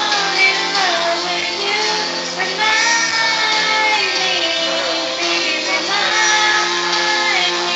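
Karaoke: a person singing a melody into a microphone over a backing track.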